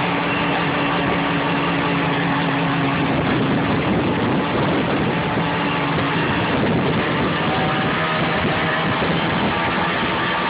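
Snowmobile engine running steadily while riding along a trail, a continuous engine drone with track and snow noise underneath.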